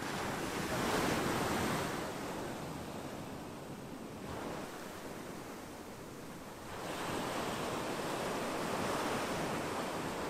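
Ocean surf breaking on a beach, with two long washes of waves: one in the first couple of seconds and another from about two-thirds of the way in.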